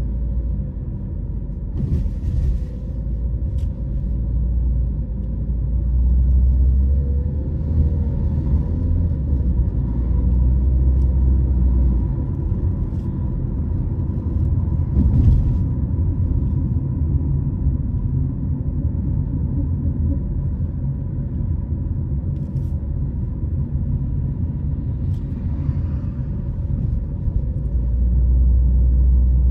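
A car driving through city streets: steady low road and engine rumble that swells and eases as the car speeds up and slows, with a few faint knocks.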